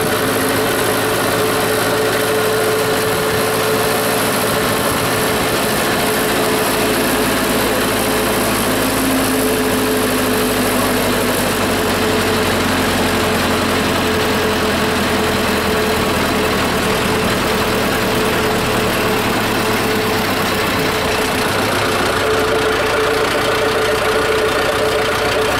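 Zetor tractor's diesel engine running steadily while the tractor drives, heard close up from the driver's seat; its note shifts a little a few times.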